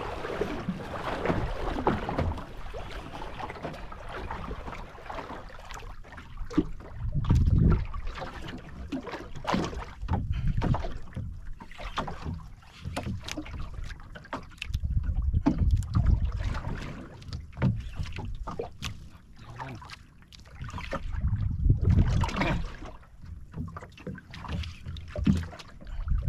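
Water slapping and splashing against a small outrigger boat's hull, with wind gusting on the microphone in low rumbling surges several times.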